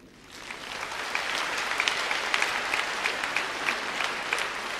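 Large theatre audience applauding, the clapping swelling over the first second and then holding steady.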